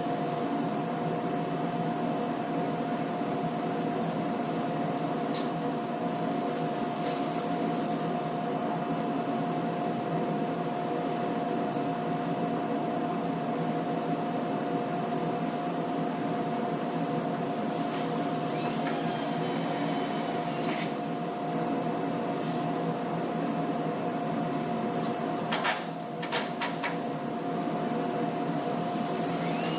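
A machine running with a steady hum and one constant tone, plus a faint high whine that wavers slightly. A few sharp clicks or knocks come near the end.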